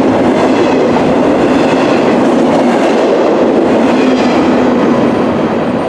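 Freight train of garbage container cars rolling past on the rails, a steady loud noise of steel wheels on track that eases a little near the end as the train moves away.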